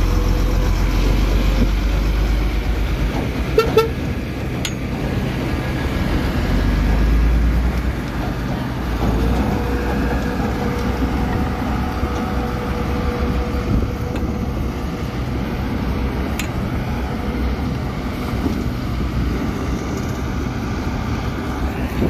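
Heavy diesel engines of a Komatsu D31P crawler bulldozer and a crane truck running steadily, with a short horn toot about three and a half seconds in.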